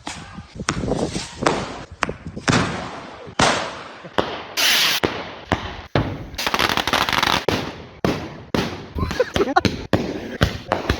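Firecrackers and fireworks going off in a rapid string of sharp bangs, with a hissing burst about four and a half seconds in and a stretch of fast crackling soon after.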